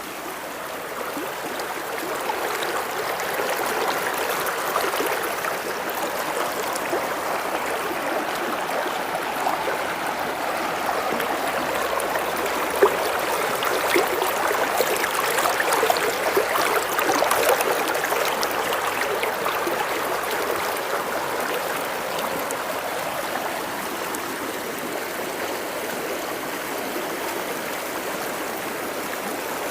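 A river running fast and full after overnight rain: a steady rush of flowing water.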